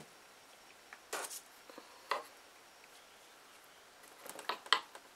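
A few light taps and rustles from hands handling things on a craft table: one about a second in, another about two seconds in, and a quick cluster near the end, quiet in between.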